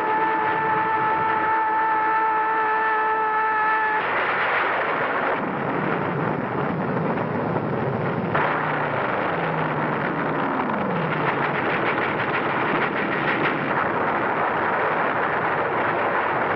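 Air-raid sound effects on an old film soundtrack. A steady droning tone lasts about four seconds, then a dense, continuous din of gunfire and explosions follows, with an aircraft engine falling in pitch about ten seconds in.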